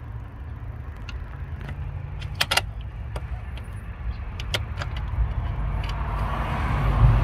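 Scattered light metal clicks and taps as a throttle cable bracket and stud are handled and fitted by hand in an engine bay, the sharpest pair about two and a half seconds in. Under them is a steady low rumble that grows louder in the second half.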